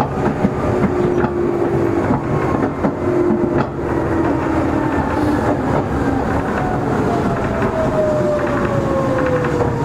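Inside a Meitetsu 6000 series electric train car under way: running rumble with scattered rail-joint clicks, and a traction motor and gear whine falling steadily in pitch through the second half, as the train slows.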